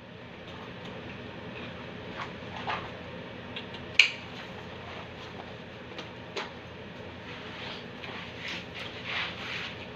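Rustling and handling noises of a waist bag being put on, over a steady room hum, with a sharp click about four seconds in as the buckle snaps shut.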